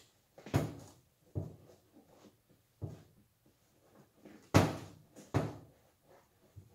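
Irregular knocks and thumps, about half a dozen, the loudest about four and a half seconds in: an MGB seat back and its metal frame bumping on a steel tool chest as its vinyl cover is tugged off the foam.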